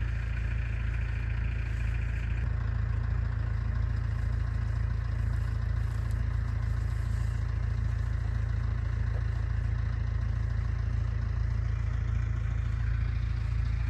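Farm tractor engine running steadily with a low, even drone that does not change in speed.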